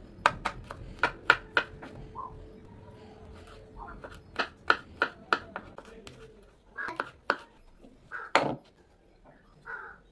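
Knife chopping garlic cloves on a bamboo cutting board: uneven runs of sharp knocks as the blade hits the wood, with softer handling sounds in between.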